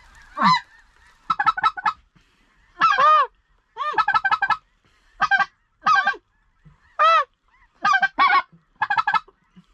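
Goose calling: a string of about a dozen loud honks and quick runs of short clucks, each call rising and falling in pitch, with short gaps between them.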